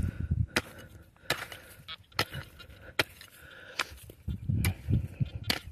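A small hand pick chopping into dry, stony dirt to dig out a metal-detector target: about six sharp strikes, roughly one a second.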